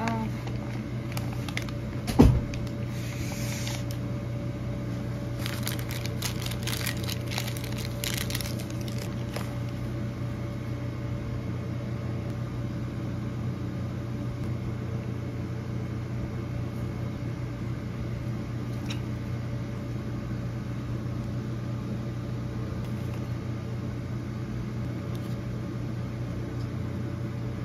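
Steady mechanical hum of a running room appliance, with a sharp knock about two seconds in and crackly paper-bag rustling over the next several seconds as items are handled.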